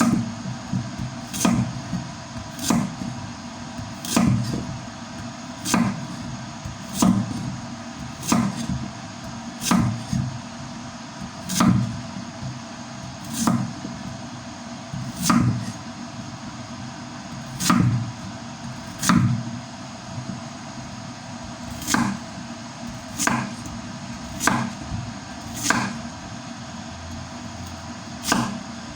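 Kitchen knife cutting through fresh carrots onto a cutting board, one crisp chop about every second and a half, over a steady background hum.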